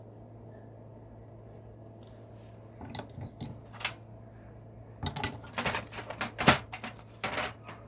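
Metal hand tools clinking and clattering against each other as they are picked through in a toolbox: a few clinks about three seconds in, then a busier run of clatter in the second half.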